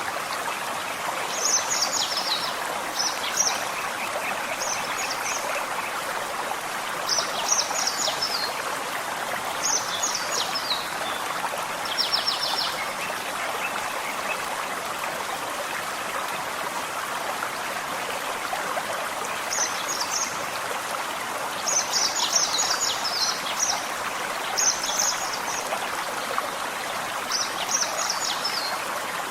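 Forest stream running steadily, with short, high, chirping bird song phrases repeating every couple of seconds. The birds pause for several seconds about midway.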